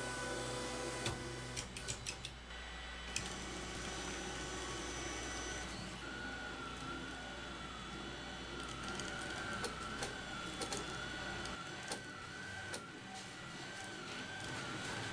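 Rostock Mini delta 3D printer's stepper motors whining as it prints, with a tone that warbles up and down over and over from about six seconds in, among light scattered ticks.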